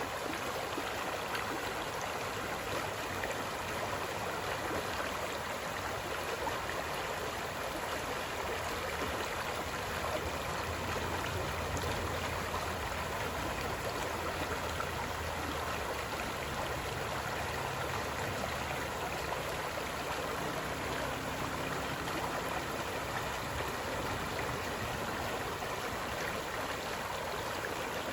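Steady rush of moving water, even and unbroken, with a faint low hum rising under it for a while in the middle.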